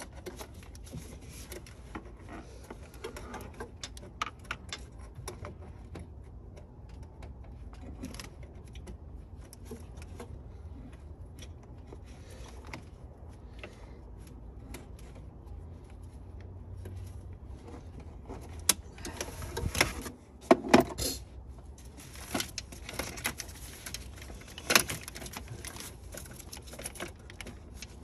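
Scattered clicks, taps and rattles of hands working parts and tools in a car's engine bay, over a steady low hum, with a louder run of knocks about two-thirds of the way through and one more sharp knock a few seconds later.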